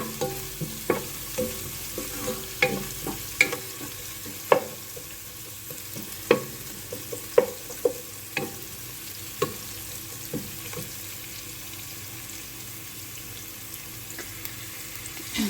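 Sliced onions frying in hot oil with a steady sizzle while a spoon stirs them, knocking against the pot roughly once a second. The knocks die away after about eleven seconds, leaving only the sizzle.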